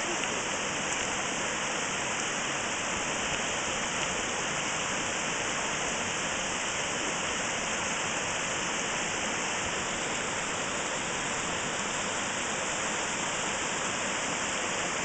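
A shallow, rocky stream rushing steadily over stones and small cascades.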